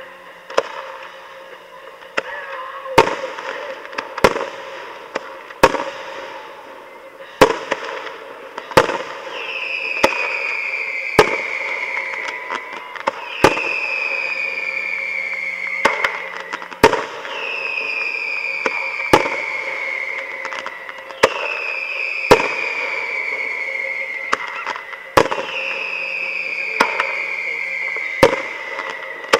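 Fireworks shells bursting in sharp bangs about every one to two seconds. From about ten seconds in, a high whistle falls in pitch over a few seconds and repeats every three to four seconds.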